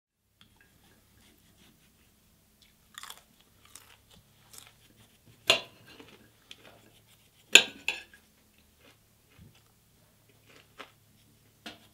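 Kitchen prep: a knife cutting green beans against a plate and a vegetable peeler working a potato, heard as scattered small clicks and scrapes. Two sharp knocks stand out, about five and a half and seven and a half seconds in.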